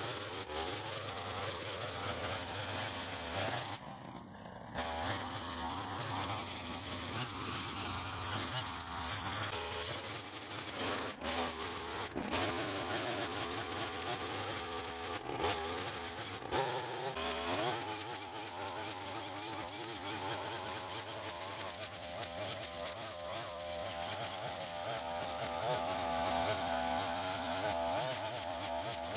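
Backpack brush cutter with a nylon-cord trimmer head running at high revs, its small engine buzzing steadily while the spinning cord cuts wet grass. The sound dips briefly about four seconds in, and the engine pitch wavers up and down in the second half as the cutter works through the grass.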